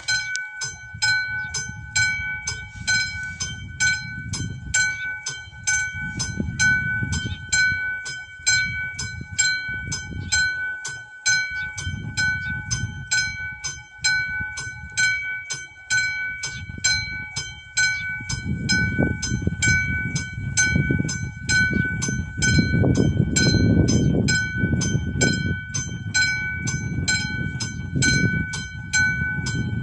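Warning bell of a Czech AŽD 71 level crossing, a classic electric bell striking rapidly, about three strikes a second, with its ring held between strikes; it signals an approaching train. A low rumble builds under it from about two-thirds of the way in.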